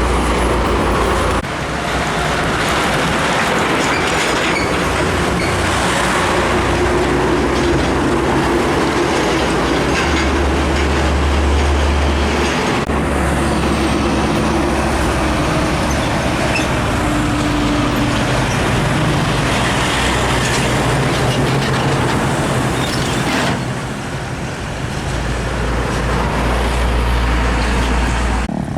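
Heavy trucks driving past on a road, with diesel engines running under a constant rush of tyre and traffic noise. The sound changes abruptly a few times where separate clips are cut together.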